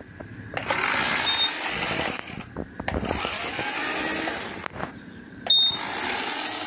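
Small electric motor spinning a model plane's propeller, whirring in three runs of a second or two with short pauses between them as it is switched forward and back. A short high beep from a small buzzer sounds twice, about one and five seconds in; the second is the loudest moment.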